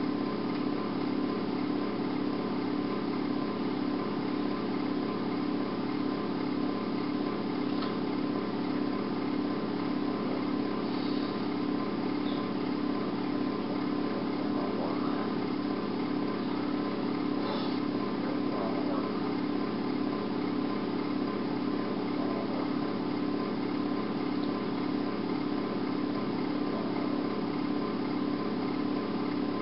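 A steady machine hum, even in level throughout, with a faint thin steady tone above it.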